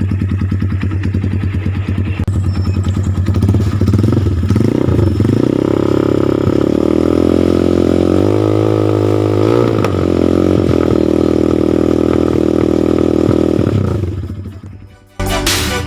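Motorcycle exhaust through an SC Project aftermarket muffler with the dB killer fitted. The engine idles, is revved up about four seconds in, and is held at higher revs with a few small dips before fading out near the end. Music cuts in at the very end.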